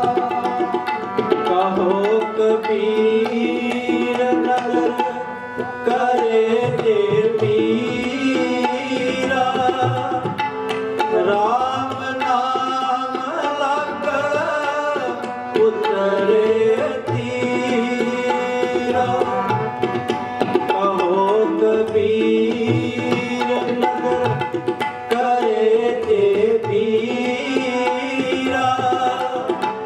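Sikh kirtan: voices singing a devotional melody over two harmoniums holding sustained reed chords, with a tabla pair keeping a steady rhythm.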